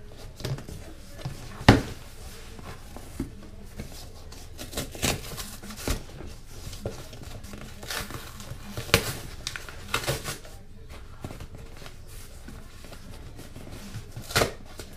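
Long cardboard shipping box being handled and its end flaps pulled open: cardboard scraping and rustling with scattered sharp knocks and taps, the loudest about two seconds in, another about nine seconds in and another near the end.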